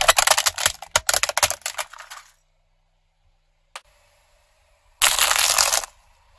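Plastic toy police car cracking and breaking under a car tyre: a dense run of crackling snaps lasting about two seconds. About five seconds in, peanut shells crunch under the tyre in a second burst of crackling that lasts about a second.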